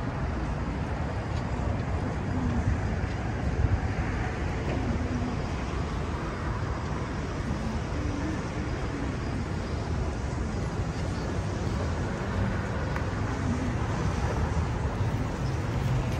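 Steady city street traffic noise: cars and a bus running on a downtown street, a continuous low rumble.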